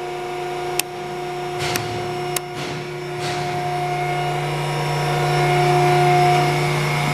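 A 4 mm Heller power shear's motor running steadily with an even hum. Three sharp clicks from its control-panel buttons and switches come in the first two and a half seconds.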